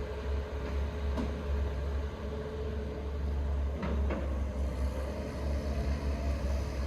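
Heavy diesel engine running steadily with a low rumble, with a short knock about a second in and a brief metallic clank around four seconds.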